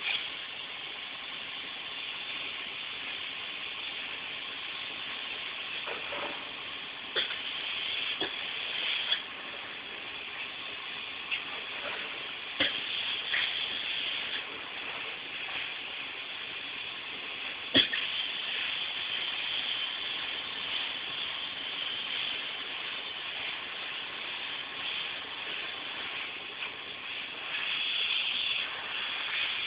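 Polyurethane foam spray gun hissing steadily as insulation is sprayed, with a few sharp knocks here and there.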